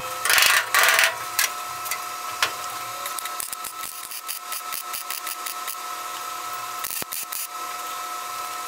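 Welding thin sheet steel: a steady hum with a constant fine crackle, starting about a second in after a brief clatter.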